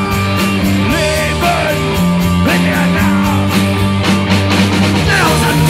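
Punk rock band playing live: electric guitars, bass guitar and drums in an instrumental passage with a steady beat.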